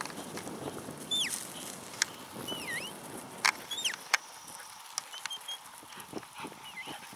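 Short, high whistles that swoop down and back up in pitch, repeated several times, with a few sharp clicks in between.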